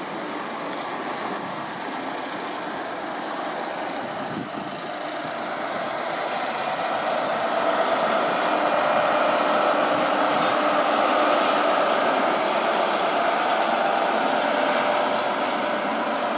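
InterCity 125 (HST) high-speed train moving through the station: the diesel engine of its power car runs steadily over the noise of the coaches on the track. It grows louder about six seconds in as the power car draws level.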